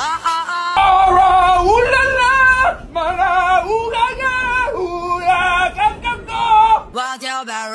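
A loud, high singing voice with wide vibrato, holding notes and sliding between them over a low rumble. A music track with bass is heard in the first second, and near the end the singing drops to a lower pitch.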